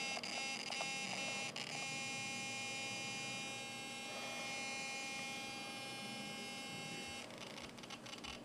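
Traxxas Slash 4x4 Ultimate RC truck making a steady, high electrical buzz with many overtones, which cuts off about seven seconds in; the owner suspects the servo.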